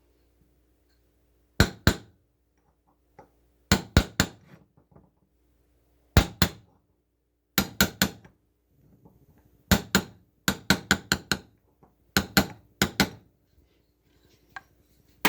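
Hammer tapping a metal punch in about eight quick bursts of two to four sharp strikes, each strike ringing briefly.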